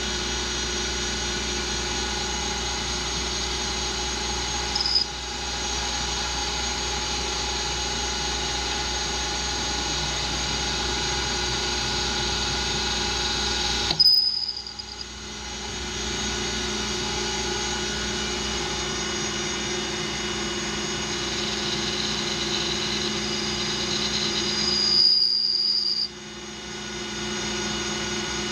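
Metal lathe running with a steady whine from its drive while a carbide insert cuts a spinning aluminum part, throwing long stringy chips. A short high squeal comes from the cut three times, each followed by a sudden drop in sound.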